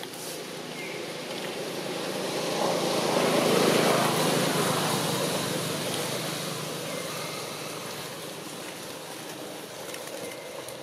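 A road vehicle passing by, its noise swelling to a peak about four seconds in and then fading away.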